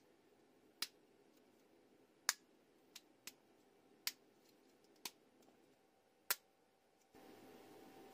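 Sharp plastic clicks, about seven of them at irregular intervals, as small 3D-printed catapult card parts are snapped and pressed together by hand.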